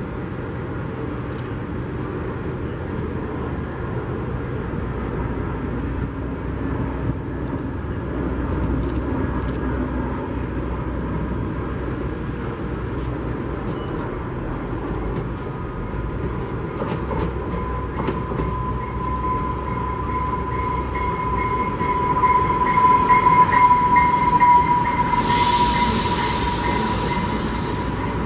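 A diesel locomotive drones steadily at idle while a Talgo passenger train approaches and passes at speed. A steady high whine from the approaching train grows louder from about two-thirds in, and a rush of wheel-and-rail noise comes as the cars sweep by near the end.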